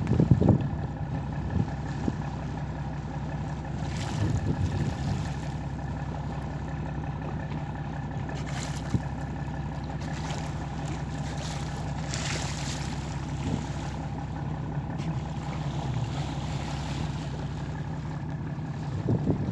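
A motorboat's engine running steadily, a constant hum, with a few brief knocks and bumps.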